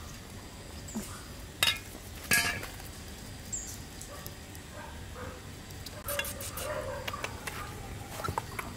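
Metal garden trowel working potting soil in a plastic pot, with two sharp clinks about a second and a half and two and a half seconds in. Scraping and rustling of soil follows a little before the end.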